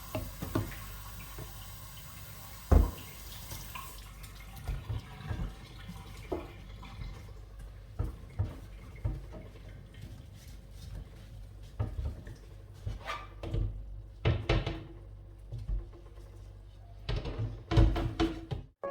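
Tap water running into a sink while removable fridge shelves and drawers are washed by hand, with scattered knocks and clatters as the parts are handled; a sharp knock about three seconds in and a burst of clatter near the end.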